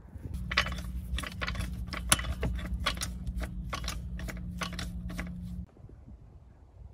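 Irregular sharp metallic clinks and clicks of hand tools and loose metal parts being handled, over a low steady hum that cuts off suddenly near the end.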